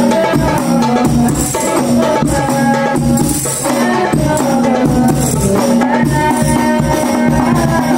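Hadrah Banjari ensemble playing: interlocking frame drums (terbang) and jingled hand drums keep a fast, steady rhythm under a sustained, melismatic sholawat chant.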